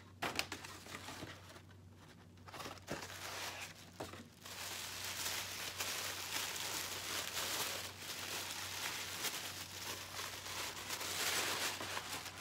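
Paper wrapping rustling and crinkling as it is pulled off a small leather clutch, after a few light knocks and rustles in the first seconds. The crinkling becomes continuous about four seconds in and is loudest near the end.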